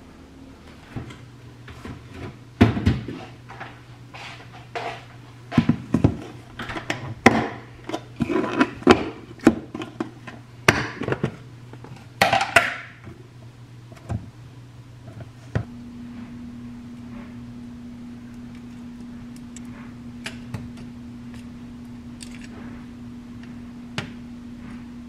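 Kitchen clatter: a quick series of knocks and clacks of a plastic food container and utensils being handled on a counter. About halfway through they give way to a steady low hum from the electric cooktop under a frying pan, with a few tong clicks.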